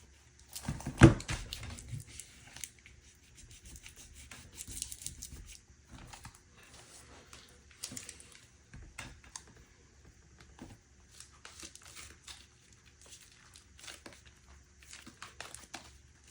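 Hand-handling of a tape-wrapped layered armor plate being flexed and turned over: crinkling and rustling of the tape wrap with scattered small clicks, and one loud knock about a second in.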